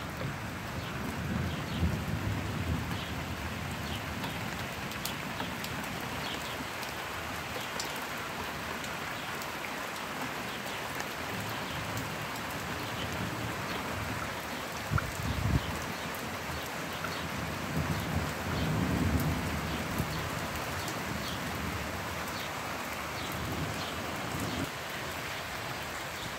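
Steady rain falling, with scattered close drops ticking. Low rumbles swell up a few times: about a second in, around fifteen seconds, and again around eighteen to twenty seconds.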